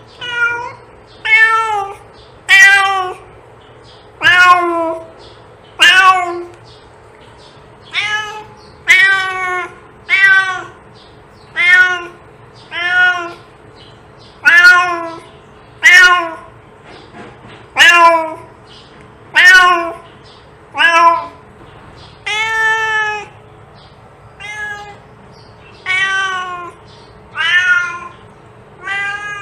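A cat meowing over and over, about twenty meows at roughly one a second, each call rising briefly and then falling in pitch as it ends.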